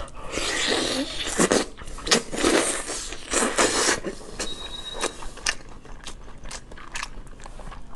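Close-miked eating sounds: a person biting and chewing tender stewed lamb leg meat. Dense wet bursts of chewing in the first half or so, then sparser sharp mouth clicks.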